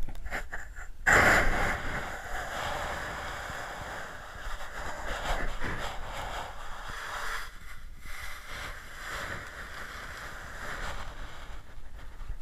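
Muffled rushing hiss of water on an underwater camera's housing, louder from about a second in, then steady.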